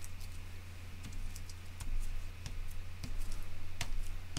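Dot paint marker dabbed onto cardboard strips on a table: irregular light taps, one or two a second, the loudest a little before the end. A steady low hum runs underneath.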